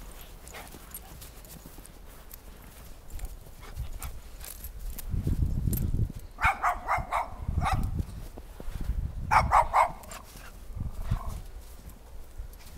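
Dogs play-fighting: two quick runs of about four short barks each, one about six and a half seconds in and one about nine and a half seconds in, with a low rumbling noise around them.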